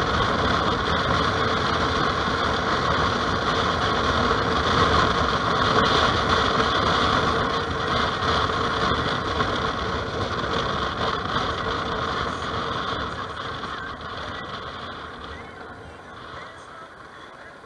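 Bumoto Regnum maxi-scooter under way at road speed: steady engine, wind and road noise, getting quieter over the last few seconds.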